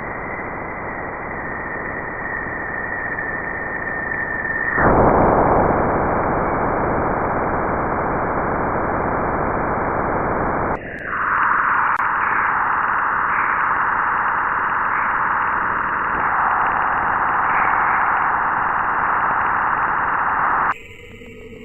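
Space recordings made audible from spacecraft data. A steady hiss with a high, steady whine gives way about five seconds in to a louder, even hiss. About eleven seconds in it changes to a brighter, higher hiss, and near the end a quieter segment with thin tones begins.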